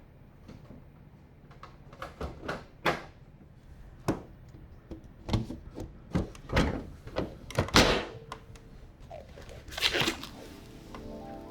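About a dozen irregular knocks and clicks of hard PC case parts being handled and fitted during assembly. Background music fades in near the end.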